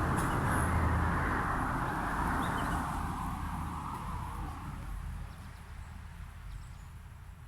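A passing road vehicle's steady rumble fading away over about five seconds, with a few faint bird chirps.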